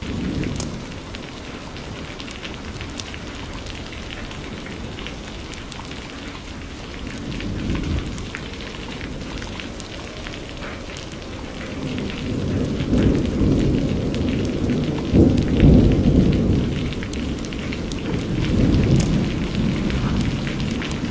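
Steady rain falling, with scattered drops pattering. A low thunder rumble swells a little about a third of the way in, then builds more strongly past the middle, loudest around three quarters through, and fades.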